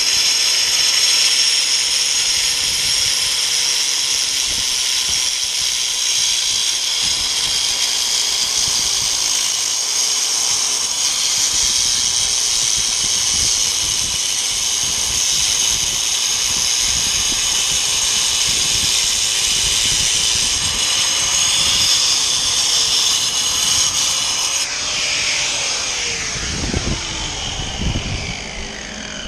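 Corded angle grinder cutting along a floor edge, a loud steady high-pitched whine. About 25 s in it is switched off and the disc spins down, its pitch falling away.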